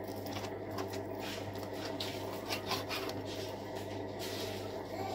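A long kitchen knife sawing through raw beef on a cutting board, the blade rubbing through the meat and now and then touching the board with a faint tap. A steady low hum sits underneath.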